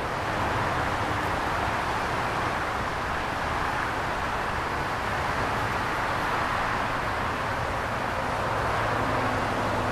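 Steady roar of distant road traffic.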